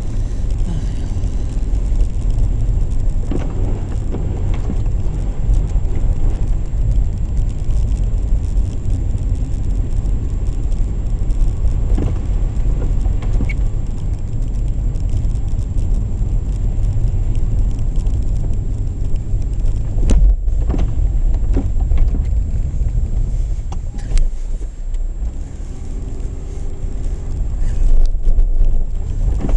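Opel Kadett E Caravan driving on a snow-covered road, heard from inside the cabin: a steady low rumble of engine and tyres, with occasional knocks and rattles.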